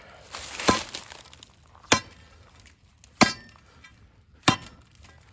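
A steel digging tool striking solid rock in a post hole, four sharp clinking blows about one every second and a quarter, making little headway through the rock.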